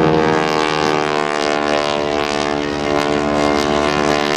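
North American AT-6/SNJ Texan's 600 hp Pratt & Whitney R-1340 Wasp radial engine and propeller droning loudly on a flypast, its pitch falling slowly as it goes by.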